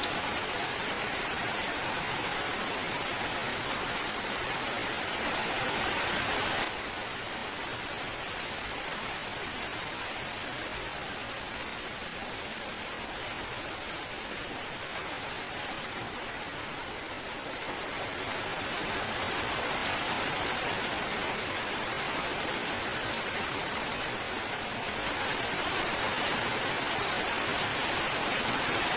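Steady rain, an even hiss of countless drops. It drops abruptly in level about seven seconds in, then swells back up over the second half.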